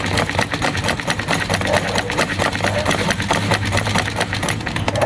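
Royal household sewing machine stitching through fabric: a rapid, even mechanical clatter of the needle and shuttle mechanism that stops abruptly at the end, while the stitch tension is being tested after the bobbin case was replaced.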